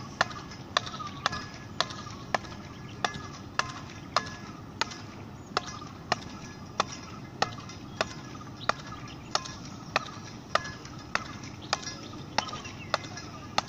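Speedball racket striking the tethered ball again and again in a steady solo rally, a sharp crack a little under twice a second.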